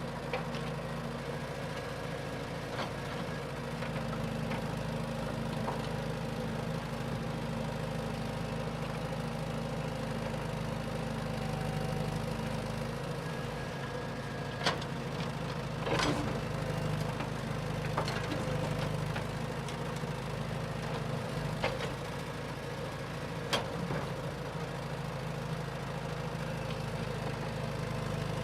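A steady low hum like an idling engine, with a few sharp clicks over it.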